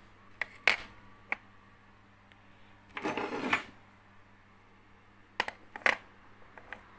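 BBQ gas regulators with brass fittings being handled and set down on a digital scale: a few sharp clicks and knocks, a short clattering scrape about three seconds in, then more knocks near the end.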